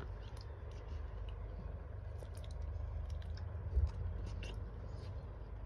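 A person chewing food, with small wet mouth clicks, over a steady low hum. A single thump comes about four seconds in.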